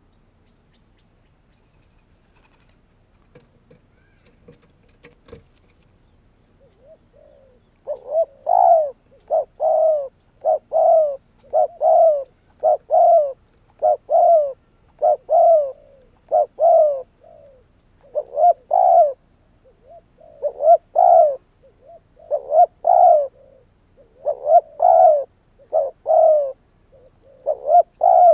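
Spotted dove cooing: after a quiet start, a long run of repeated coos in short phrases begins about eight seconds in and keeps going.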